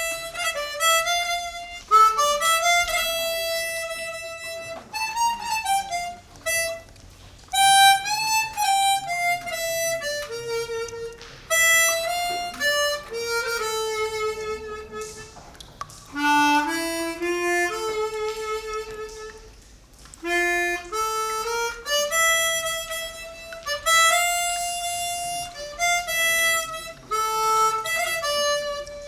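Solo harmonica playing a melody in phrases, one note at a time with short breaks between phrases, and a few notes bent in pitch.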